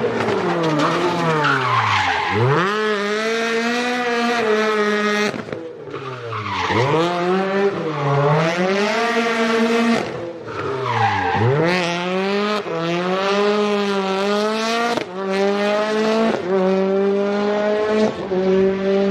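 An engine revving in three long swoops: each time the pitch falls steeply, then climbs and holds high and steady, with a brief drop in level between the swoops.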